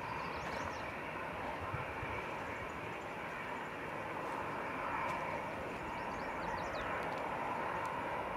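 Boeing 747-400's four jet engines running steadily at low power, heard from a distance as an even, unchanging sound, with a few faint high chirps.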